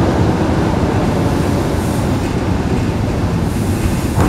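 Steady running noise of an ER2T electric multiple-unit train at speed, heard inside its passenger coach: wheels on the rails and the car body carrying an even low noise.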